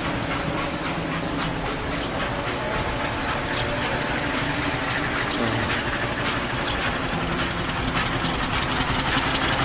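Antique early motor car's engine running with a rapid, even beat, growing a little louder near the end.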